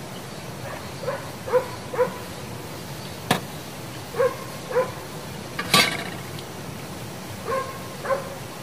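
A small Maltese dog barking in short, high yaps, mostly in pairs, about seven in all. Two sharp clicks fall in between, the second one the loudest sound.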